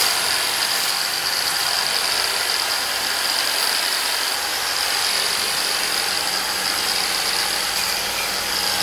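Corded handheld electric power tool running against a large timber beam, a steady high whine over a hiss that holds level throughout.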